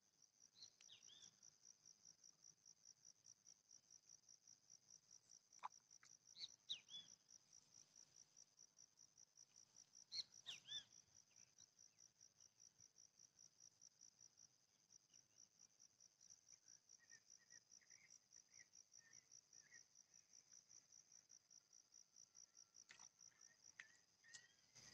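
Faint insect chirping: a steady, rapid high-pitched trill throughout, with a few short faint chirps about a second in and again around six and ten seconds in.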